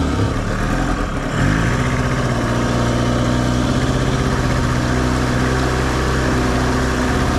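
Small outboard motor driving an inflatable boat. Its pitch shifts in the first second or so, then it runs at a steady speed over a constant rushing noise.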